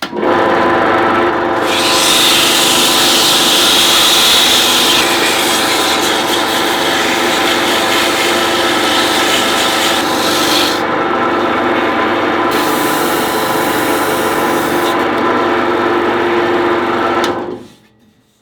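Wood lathe running with sandpaper held against the spinning wooden handle blank: a steady motor hum under a sanding hiss that swells and eases as the pressure changes. The lathe cuts off near the end.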